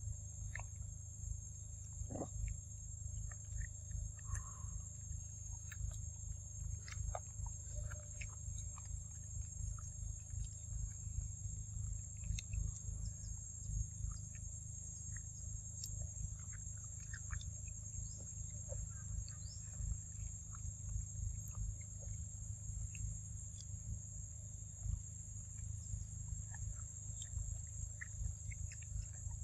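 Monkeys eating papaya, with scattered soft clicks and smacks of chewing and handling the fruit, over a steady high-pitched insect drone and a constant low rumble.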